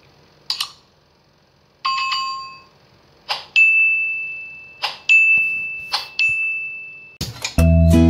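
Subscribe-button animation sound effects: sharp mouse clicks, a short ringing chime, then more clicks over a steady high bell-like ringing tone. Music with plucked notes comes in near the end.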